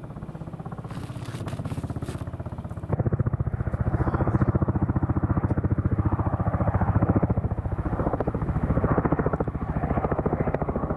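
Kamov coaxial-rotor helicopter flying overhead, its rotor blades making a fast, even chopping, with the engine noise underneath. It is loud, and grows louder about three seconds in.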